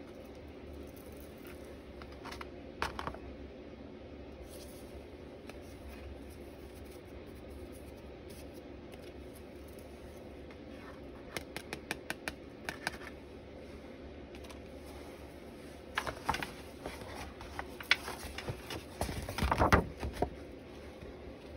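Light taps and clicks of a small plastic jar and card while white embossing powder is poured over a stamped paper panel: a few about three seconds in, a quick run around eleven to thirteen seconds, then a longer, louder bout of rustling and knocks near the end.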